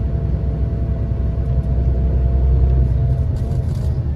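Scania Touring coach under way, heard from inside the passenger cabin: a steady low rumble of engine and road, with two steady higher tones running over it, the upper one wavering slightly a little after three seconds in.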